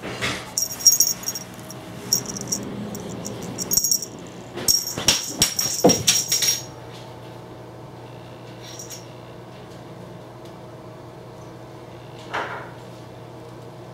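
A small bell jingling in quick, irregular bursts as a kitten's toy is shaken and thrown, with a thump about six seconds in. After that only a steady low hum remains, with one soft thump near the end.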